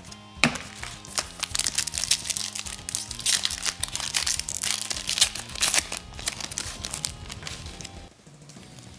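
Wrapper of a trading card pack crinkling and crackling as it is torn open and handled, busiest through the first seven seconds and thinning out near the end. Background music plays underneath.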